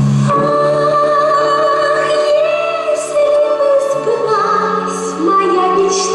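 A female voice singing long held notes without words, with a slight vibrato, over an instrumental backing; the melody moves to new notes about four seconds in.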